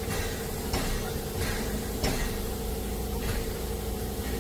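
Narrow-gauge steam locomotive 99 7241-5 standing with steam up: a steady low hum and hiss under sharp metallic knocks that come irregularly, about once a second.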